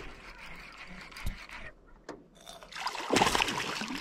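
Hooked bass splashing and thrashing at the water's surface while being reeled in, loudest about three seconds in, over a low noisy rustle.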